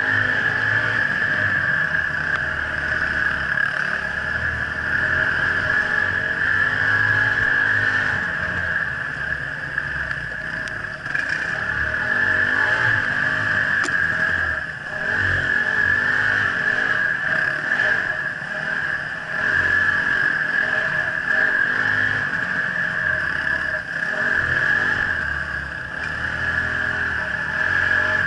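Off-road motorcycle engine heard from on board, its note rising and falling as the throttle opens and closes, with a steady high whine over it.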